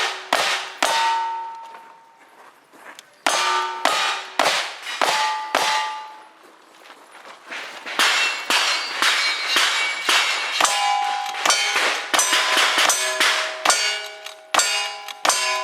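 Gunshots at steel targets, each shot followed by the clang and ring of a struck steel plate. They come in strings with short pauses, then in a fast run over the last half.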